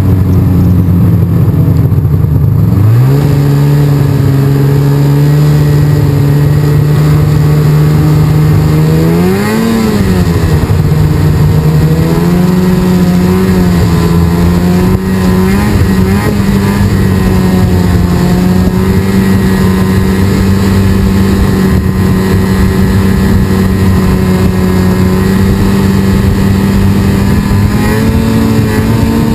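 Snowmobile engine running loud under throttle. Its pitch climbs as it pulls away about three seconds in, rises and falls briefly around ten seconds, then holds steady at cruising speed with a slight rise near the end.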